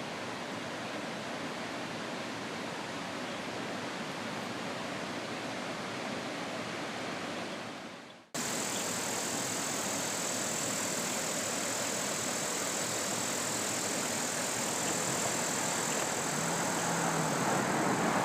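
Steady outdoor background noise, an even hiss with no distinct events. It fades and cuts abruptly about eight seconds in to a slightly louder, brighter hiss. A faint low hum comes in near the end.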